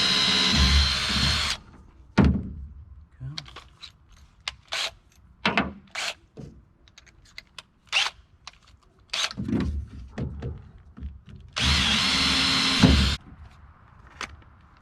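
Power drill running in two short runs, one stopping about a second and a half in and another of about a second and a half near the end, with scattered knocks and clicks of handling between them.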